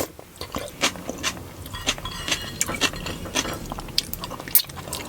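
Close-miked chewing of chicken biryani: irregular wet mouth clicks and smacks, several a second.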